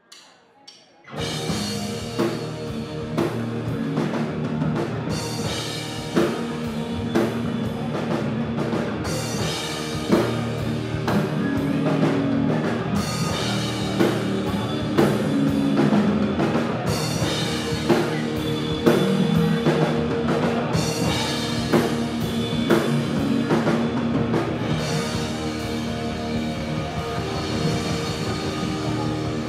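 Three-piece rock band playing live: drum kit, electric guitar and bass guitar, starting about a second in with a steady driving beat.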